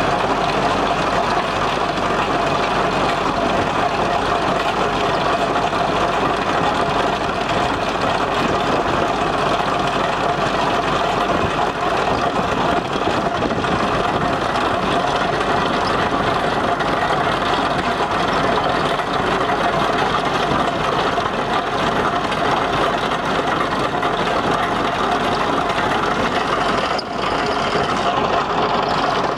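Tractor engine running steadily, driving a PTO-powered trenching machine, with a brief drop in level near the end.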